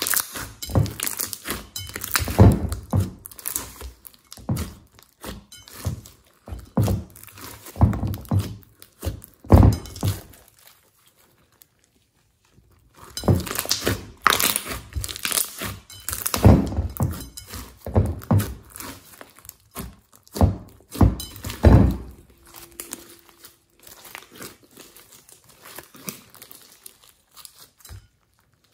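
Hands squeezing and kneading thick slime mixed with small beads: irregular wet squelches, pops and crackles. There is a pause about a third of the way in, and the sounds turn softer near the end as the slime is stretched and lifted.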